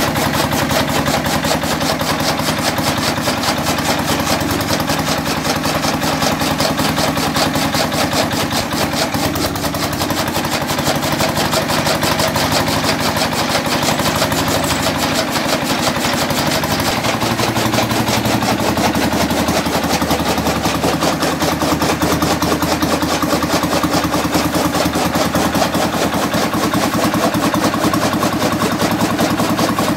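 Stationary diesel engine running steadily under load, belt-driving a chaff cutter whose flywheel blades chop green fodder, with a fast, even beat.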